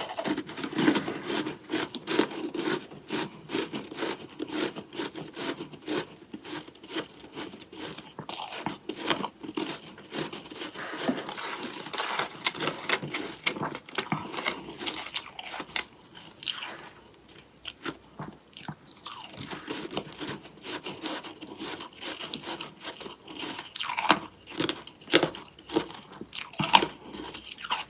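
Freezer frost being bitten and chewed close to the microphone: dense, irregular crunching of soft, powdery ice, easing briefly past the middle and with several louder crunches near the end.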